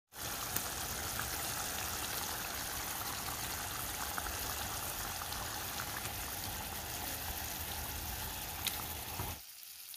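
Fish curry gravy simmering and bubbling in a pan as raw tilapia fillets are laid into it: a steady bubbling hiss with a few small pops, cutting off suddenly near the end.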